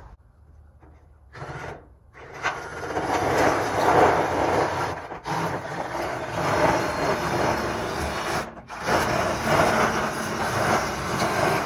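DeWalt cordless drill driving a shear attachment, cutting through corrugated galvanized tin: a short burst about a second and a half in, then a long continuous cut broken by two brief pauses.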